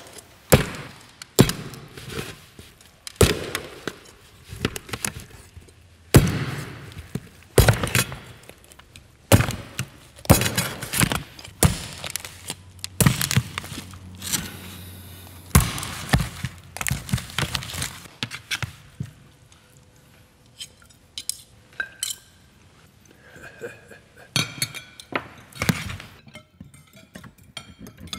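Metal cutlery clinking and knocking against a metal tray and dishes while a roast pig is carved with a knife and carving fork: irregular sharp strikes, many at first and fewer toward the end.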